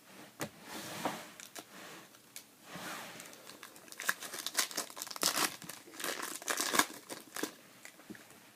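A 2013 Topps Chrome trading-card pack's foil wrapper being torn open and crinkled by hand: a run of sharp, irregular crackles, loudest in the second half.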